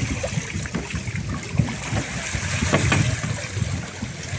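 Lake water sloshing and splashing around an inflatable plastic water-walking ball as it rocks on the surface, with irregular soft thumps and a few sharper knocks.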